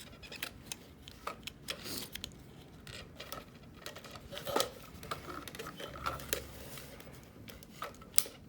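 Irregular small clicks and knocks of a tool working at plastic clips on a fuel pump assembly, prying them open. The sharpest knock comes about four and a half seconds in, with another near the end.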